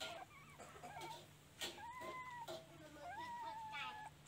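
Newborn puppies whining and squeaking while they nurse: several high, drawn-out cries, each under a second, one after another.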